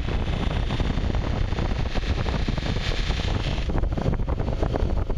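Electric bench buffer running, its sisal buffing wheel spinning against a knife blade being polished, giving a steady rushing hum with a brighter hiss of blade on wheel that eases off for a moment near the end.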